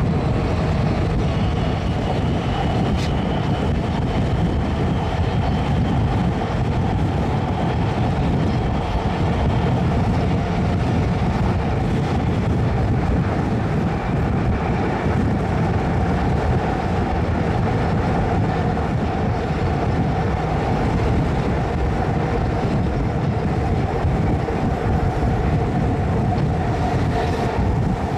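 Athens Metro Line 1 (ISAP) 11th-generation electric train running at speed: a steady rumble of wheels on rail. A faint high whine sits over the first ten seconds or so.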